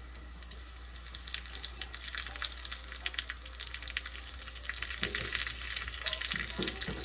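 Shallots and broken dried red chillies sizzling and crackling in hot coconut oil in a small tempering pan, stirred with a wooden spatula. The crackling builds after about a second and is loudest near the end, with a few scrapes of the spatula against the pan.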